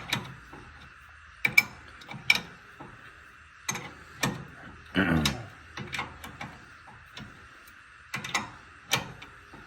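Irregular sharp metallic clicks and clinks, about a dozen spread over several seconds, of a hand wrench working a nut while a steering knuckle is taken off a truck's front suspension.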